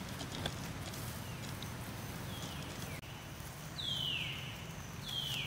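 Macaque giving three short, high-pitched squealing calls that each slide downward in pitch, each louder than the last. There is a light click early on.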